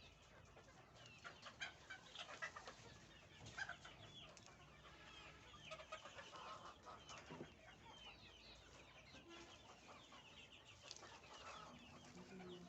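Faint clucking of a flock of Fayoumi chickens: many short, overlapping calls scattered throughout.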